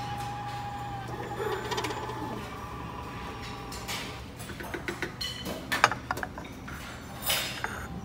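Porcelain coffee cup being lifted off a coffee machine's metal drip grate and set down on its saucer: a run of light clinks and knocks in the second half, the sharpest about six seconds in, over a steady low hum.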